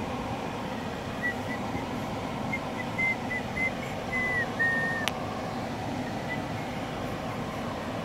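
Steady road noise inside a moving car. From about a second in, someone whistles a faint tune of short notes that ends in two longer ones, followed by a single sharp click about five seconds in.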